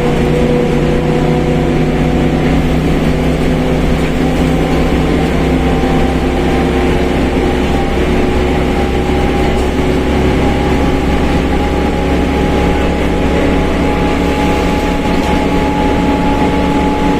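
Mercedes-Benz OF1721 BlueTec 5 bus under way: a steady low engine and drivetrain drone with a loud differential howl, several whining tones rising slowly in pitch as the bus gathers speed.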